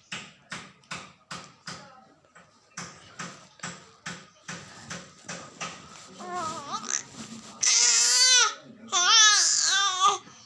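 A toddler girl's voice: a run of short, quick breathy bursts, about three a second, then from about six seconds in she breaks into loud crying, high wails wavering up and down in pitch.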